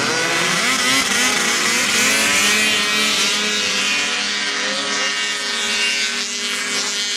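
Several snowmobile engines running at high revs as the sleds race past. Their pitches climb over the first couple of seconds as they accelerate, then hold a steady high note.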